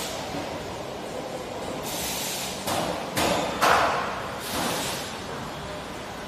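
Bubble film production machine running: a steady machinery drone, broken by several sudden rushes of hiss, the loudest about three and a half seconds in.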